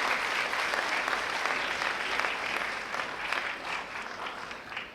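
A large audience of schoolchildren clapping, many hands at once, slowly fading out near the end.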